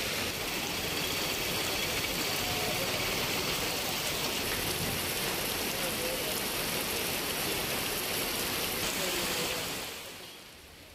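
Heavy rain pouring down and splashing on a road surface, a steady dense hiss that fades out near the end.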